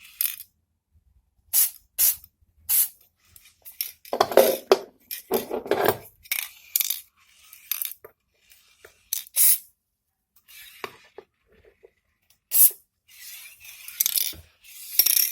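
Short hissing spritzes from an aerosol lubricant can, being sprayed into a door handle and latch mechanism, among sharp metal clinks and clicks of the small handle parts being handled. The mechanism had been squeaking because its metal parts were rubbing dry with no grease.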